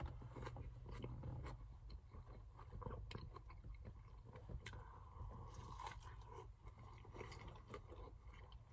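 A person biting into and chewing a Burger King Whopper, close to the microphone: faint, irregular chewing with many small crunching clicks.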